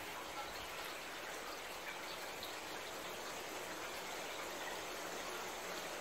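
Steady rain falling, an even hiss with a few nearer drips.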